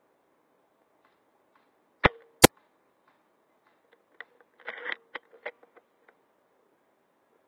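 Tokyo Marui VSR-10 spring-powered bolt-action airsoft rifle firing: two sharp cracks under half a second apart, the second one louder. About two seconds later comes a quick run of clicks and a brief rattle as the rifle is handled.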